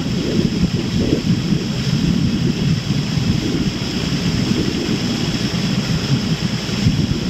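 Wind buffeting the camera's microphone: a steady, loud, low rumbling rush with no clear breaks.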